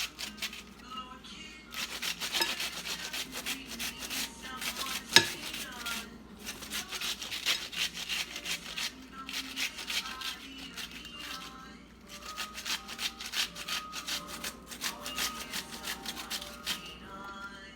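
Onion being grated on a hand grater: fast rasping strokes in two long runs with a short break in between, and one sharp knock about five seconds in.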